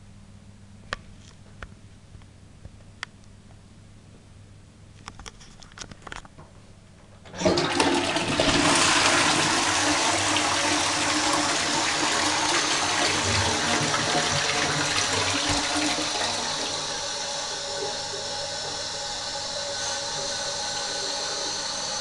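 Back-to-wall toilet with a push-button flush: a few small clicks, then about seven seconds in the flush starts suddenly with a loud rush of water into the bowl. Over the last few seconds it becomes quieter and steadier.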